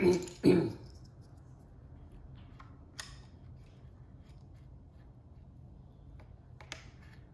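Plastic clicks and snaps of keycaps and switches being handled and pressed onto a mechanical keyboard: two louder snaps right at the start, then a few faint scattered clicks.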